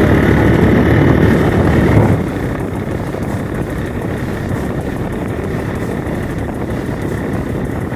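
Motorcycle running along a hill road, heard from the rider's seat as engine and rushing wind-and-road noise. The noise eases off about two seconds in and then holds steady.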